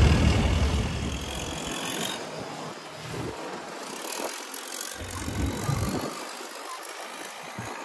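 Longtail boat under way: its engine running amid rushing water and wind noise, heaviest in the first second or so.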